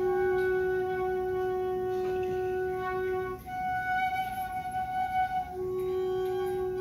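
Long held flute-like notes: one low note for about three seconds, a jump up about an octave for about two seconds, then back to the low note.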